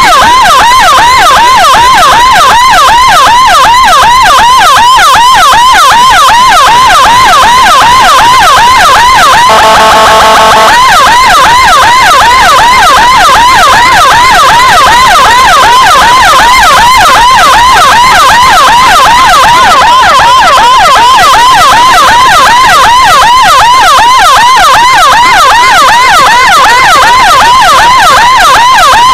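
Emergency siren on a rapid yelp, its pitch cycling quickly up and down without a break. About ten seconds in, a steady horn blast sounds over it for about a second.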